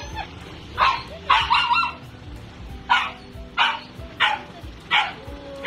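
Dog barking excitedly in greeting, about nine short, sharp barks that come singly and in quick pairs.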